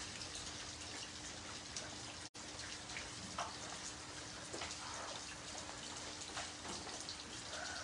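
Heavy rain falling on a wet paved surface: a steady hiss with scattered splashes of drops hitting the standing water. The sound cuts out for an instant about two seconds in.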